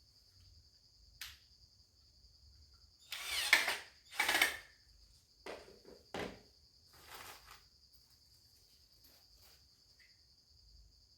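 Steady high insect trill, like crickets, running throughout, with a few short noisy sounds in the middle, the two loudest close together about three and four seconds in.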